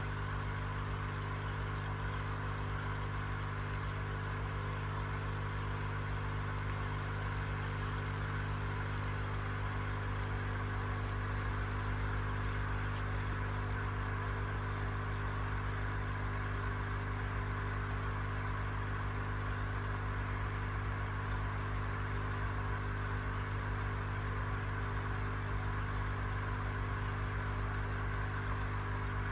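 Steady low electric hum with a soft hiss over it.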